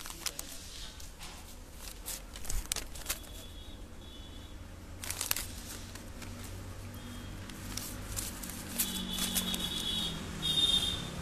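Handling noise on a wired earphone microphone: rustling and scattered crackling clicks as the cable rubs against clothing, with a few faint high tones near the end.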